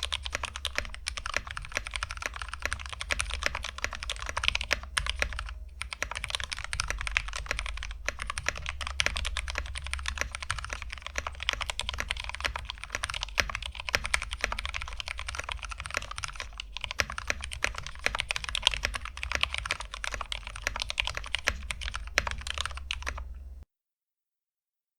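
Fast, continuous typing on a Kemove Snowfox 61 mechanical keyboard with lubed linear frankenswitches (Gateron Yellow stems in Halo True housings): a smooth, deep clacking of keystrokes. The typing stops abruptly near the end.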